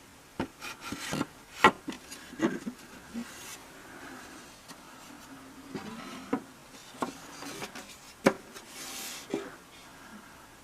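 Handling noise: a string of irregular knocks and clicks with brief rubbing, as of wooden pieces being moved and set down.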